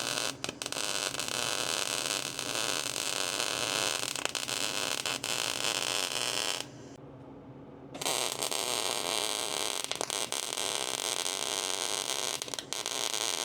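A gas-shielded MIG welder's arc crackling steadily as a weld bead is laid, overlapping the previous bead. It stops for about a second just past the middle, then strikes again and runs on.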